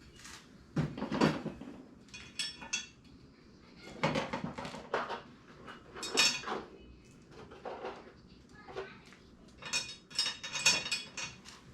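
Metal tools and engine parts clinking and clanking against each other in irregular knocks, some with a short metallic ring, while parts are worked off a 5.3 LS V8 engine.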